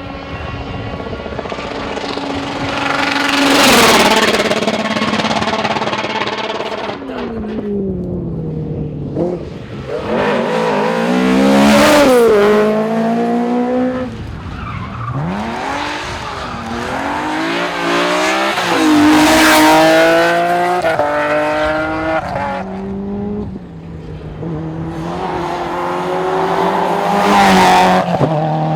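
Rally cars passing one after another under hard acceleration, four loud passes about eight seconds apart. The engines rev up through the gears in a stepped climb and drop away as each car goes by, with some tyre squeal.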